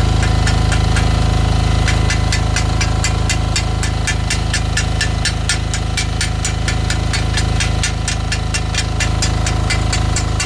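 Pro Craft DP35 diesel generator engine running steadily, with a fast, uneven train of sharp crackles over it.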